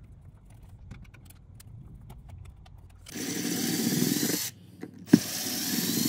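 Cordless drill-driver runs twice, each for a second or so with a sharp click between, backing out the mounting screws of an electrical wall receptacle. Before it, about three seconds of faint light clicks as a hand screwdriver takes off the cover-plate screw.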